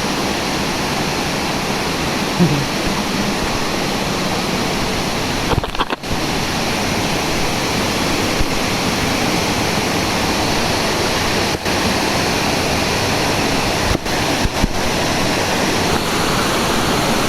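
Waterfall rushing as a loud, steady roar of falling water, broken by a few brief dips.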